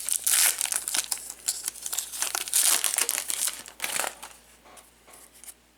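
Crinkling and rustling of trading-card packaging being handled, a dense crackle for about four seconds that then dies down.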